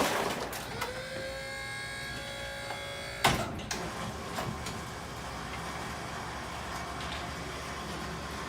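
Electric dump motor of a Dump-Dolly Titan 3180 powered dump cart whining as it runs for about two seconds, its pitch rising slightly as it starts, followed by a sharp clunk.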